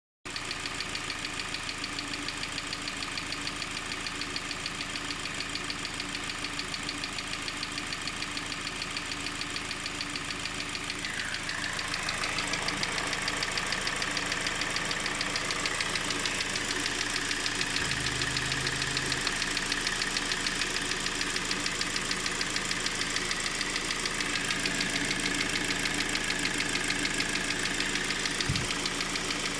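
Car engine idling with a rapid, even knocking in it, the engine knock that is being shown as a fault. About twelve seconds in the sound gets a little louder and stays so.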